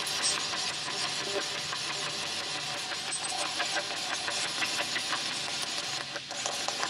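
Spirit box sweeping through radio stations: a steady hiss of radio static broken by faint short clicks and chops.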